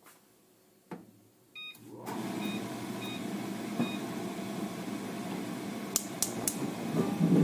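A short electronic beep and a few fainter beeps, then a steady rushing hum that starts about two seconds in and runs on. About six seconds in come three quick sharp clicks of a gas stove igniter lighting the burner.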